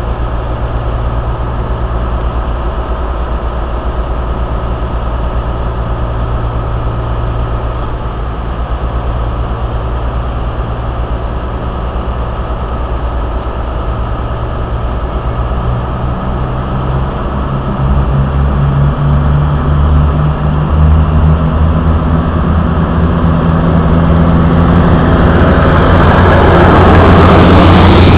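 CrossCountry Voyager diesel multiple unit's underfloor diesel engines idling with a steady low hum, then powering up about two-thirds of the way in as the train pulls away. It grows steadily louder as the train comes alongside and passes, with wheel and rail noise building near the end.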